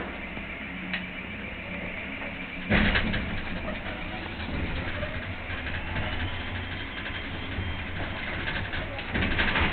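Straddle carrier running, heard from inside its cab: a steady low engine drone, with a sudden loud rattle about three seconds in, after which it runs louder, and another louder stretch near the end.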